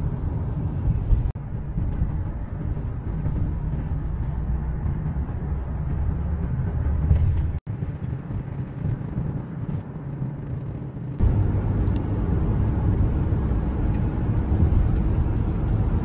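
Road noise and engine hum inside a moving car's cabin, a steady low rumble. It cuts out for an instant about seven and a half seconds in, and grows louder from about eleven seconds on.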